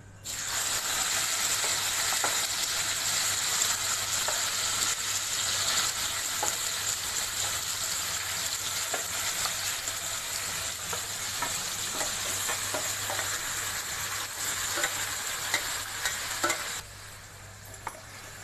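Marinated chicken hitting hot oil in a kadhai and sizzling loudly at once, with a spatula clicking and scraping against the pan as the pieces are stirred. The sizzle cuts off suddenly near the end.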